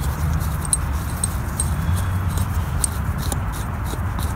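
A few light metallic clicks as a nut is spun by hand along a threaded axle bolt, over a steady low rumble.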